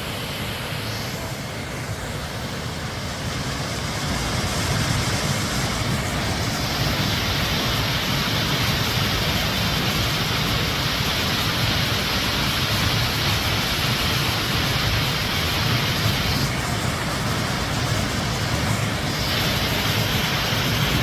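Waterfall running high with rainy-season water, a dense, steady rush of falling water that gets somewhat louder about four seconds in.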